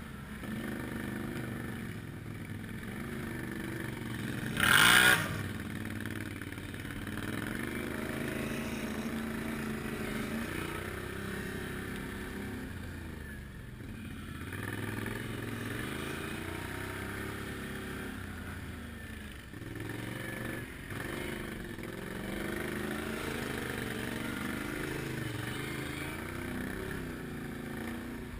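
Can-Am Outlander ATV's V-twin engine running under load, its revs rising and falling as the rider accelerates and eases off over rough, muddy ground. A brief, loud burst of noise comes about five seconds in.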